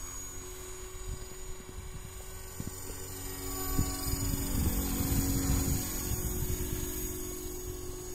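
Tarot 450 electric RC helicopter in flight, its motor and rotors giving a steady hum with a high whine above it. Irregular low buffeting rumbles on the microphone, loudest about halfway through.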